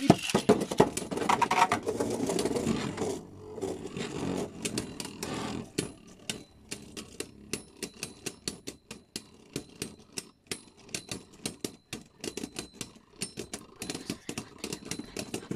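Two Beyblade Burst spinning tops, Brave Valkyrie and Mirage Fafnir, launched into a clear plastic stadium. They whir and scrape loudly for the first few seconds, then settle into rapid, irregular clicking as they knock against each other while spinning down.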